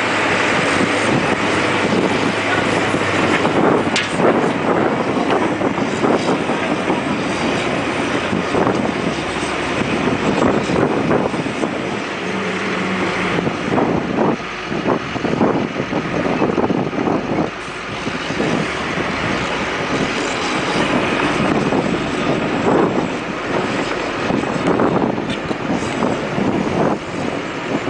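Diesel dump truck engine running under load while the truck is stuck in mud, with wind buffeting the microphone.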